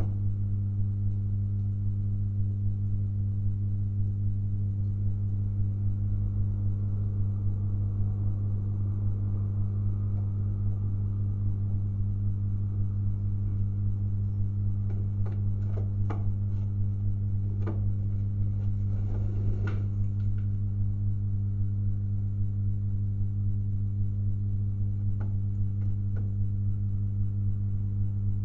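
Steady low electrical mains hum with a stack of overtones. A few faint clicks and a short rustle come about two-thirds of the way through.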